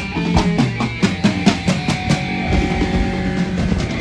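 Live band playing a steady beat during a sound check: drum kit hits, including bass drum, over bass and guitar.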